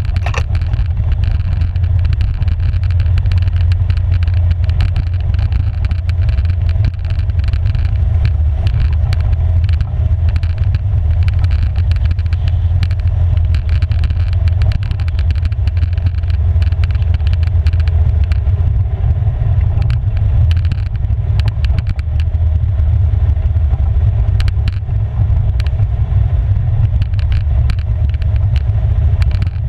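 Polaris 570 EPS ATV riding steadily at trail speed on a gravel road: the single-cylinder engine runs at an even pace with tyre rumble underneath and frequent small clicks and knocks.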